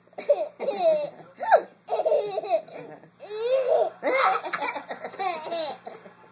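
Baby laughing in a series of short bursts, the pitch rising and falling within each.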